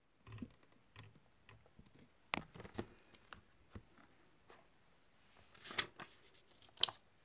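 Scissors and paper being picked up and set down on a craft desk: scattered light clicks and taps, a few sharper ones about two and a half seconds in and near the end.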